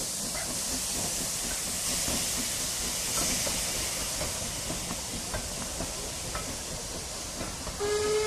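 Saddle tank steam locomotive NCB No. 49 and its coaches passing, a steady hiss of steam with faint clicks from the train. Near the end the locomotive's steam whistle starts and holds one steady note.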